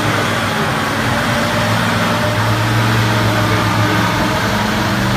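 Six-wheeled army truck's engine running steadily as it fords a flooded crossing, with water rushing and churning around its wheels.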